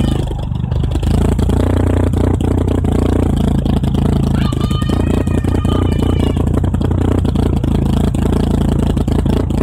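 1992 Mitsubishi Galant VR-4's turbocharged 4G63 inline-four idling through its twin-tip exhaust on freshly fitted HKS 272 camshafts, a steady low exhaust note with irregular clicks and clatter, dipping briefly about half a second in.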